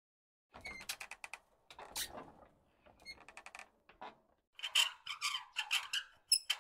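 Cartoon sound effects of a swinging light bulb and a subscribe click: a run of short creaks and squeaks with clicks, growing louder in the second half.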